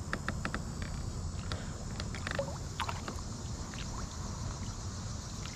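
A kayak on calm water, with a steady low rumble of wind and light water movement around the hull. There is a quick run of small clicks in the first half second and a couple of short chirps around the middle.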